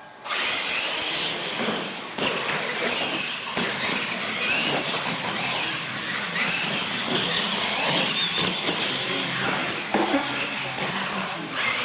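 Two radio-controlled monster trucks launching and racing: their electric motors and gears whine, the pitch rising and falling with the throttle, over tyre noise on concrete. A few knocks come as the trucks hit the ramps.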